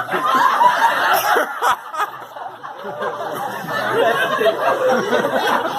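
Several people's voices talking over one another, with chuckling and laughter mixed in; no clear words stand out.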